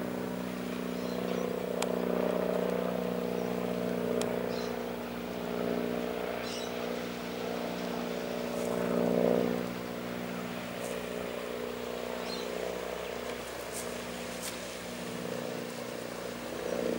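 A diesel engine running steadily, a low even drone that swells and fades a little, with a few faint high clicks over it.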